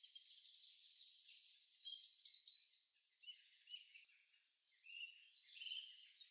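Faint high-pitched chirping of birds and insects, an outdoor nature ambience. It fades, drops out for a moment a little past the middle, and returns near the end.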